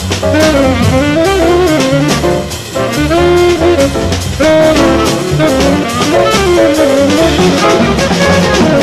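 Tenor saxophone soloing in a winding, fast-moving jazz line over a drum kit, played live.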